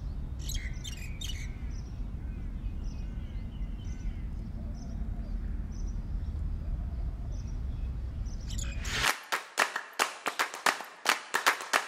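Outdoor ambience: a steady low rumble with small birds chirping now and then. About nine seconds in this cuts off and a run of sharp percussive hits starts, about three a second, the opening of a music track.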